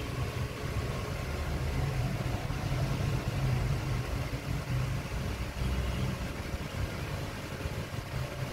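Steady low rumble, like a motor or traffic running in the background.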